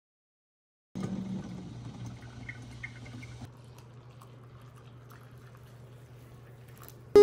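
Coffee pouring from a glass carafe into a mug, with a light hiss over a steady low hum. It starts about a second in after a brief silence and grows quieter about halfway through.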